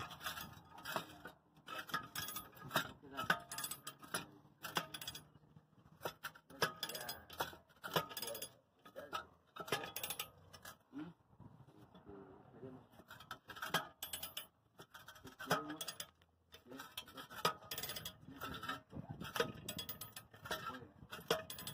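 Irregular metallic clicks and clinks of a steel C-frame ball joint press and its adapters being handled and seated against the steering knuckle.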